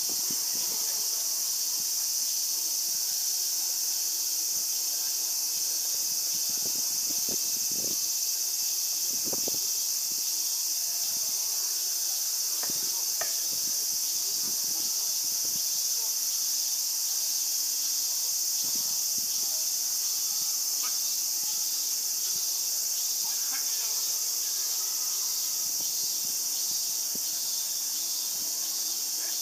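Steady high-pitched chorus of insects, unbroken throughout, with faint scattered knocks and rustles beneath it.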